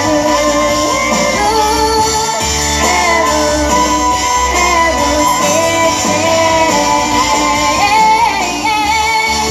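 A young girl singing a pop song live into a microphone over loud backing music, her voice carrying a continuous, wavering melody line.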